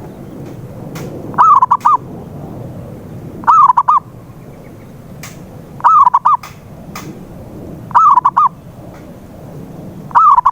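Zebra dove (perkutut) cooing: a short phrase of three or four quick rolling coos, repeated five times about every two seconds over a low steady background rumble.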